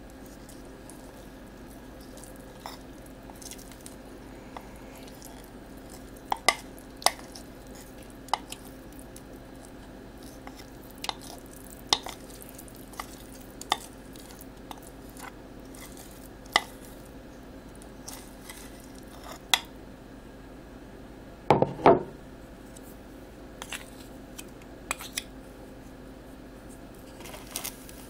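A spoon clinking and scraping against a mixing bowl and a foil pie pan as melted chocolate is spooned out, making scattered sharp clicks every second or two. A louder cluster of knocks comes about 22 seconds in, over a steady faint hum.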